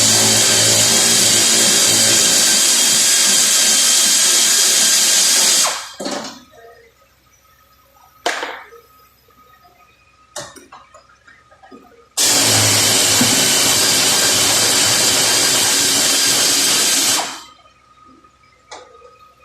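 A power tool runs in two bursts of about five seconds each, each starting at full speed and winding down at the end, with a few short knocks in the pauses between.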